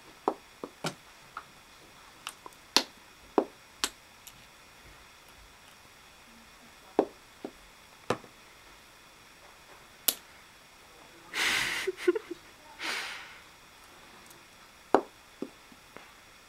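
Light plastic gear toys clicking and knocking against one another as a rabbit noses and pushes them: about a dozen sharp single clicks, irregularly spaced. Two short hissing rustles come about two-thirds of the way through.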